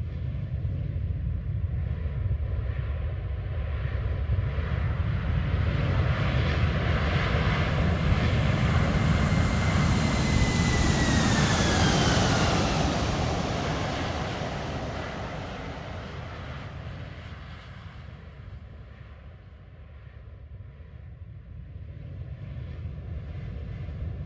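Airbus A321 jet engines as the airliner flies past on landing: a low rumble builds to a peak about halfway through, with a whine that drops in pitch as it passes, then fades away before growing louder again near the end.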